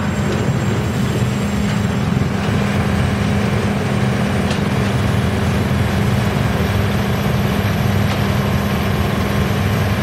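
Large industrial drum wood chipper running with a steady heavy machinery drone and a constant low hum, while a log is fed in on its infeed conveyor.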